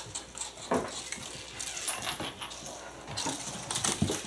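Kittens scampering and batting small plastic toys about on a hardwood floor: irregular light taps, knocks and clatters.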